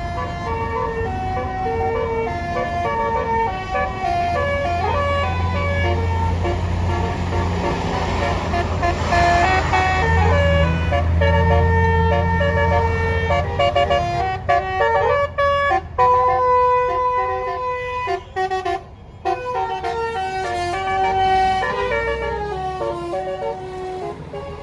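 A bus's 'basuri' musical air horn playing a tune of stepped notes, over the low rumble of the bus engine running.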